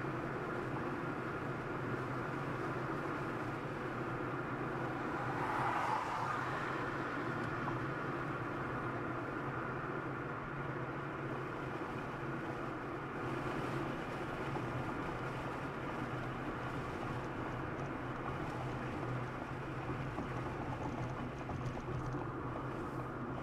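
Steady drone of a car travelling at highway speed, road and engine noise heard from inside, with a brief swell about six seconds in.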